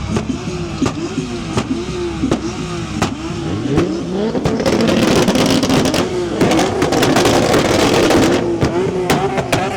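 A car engine revving hard: the pitch climbs about three seconds in, and a loud, harsh rasp follows for about four seconds before it eases back.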